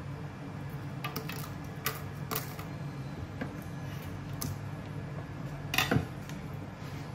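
Dried red chillies dropped by hand into an empty plastic blender jar: a scatter of light clicks and taps, the loudest just before the end, over a low steady hum.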